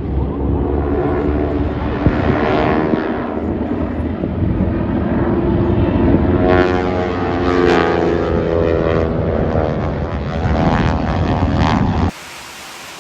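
Propeller airplane engine running loud during a flyby, its pitch shifting as it passes. The sound cuts off abruptly near the end and a steady hiss replaces it.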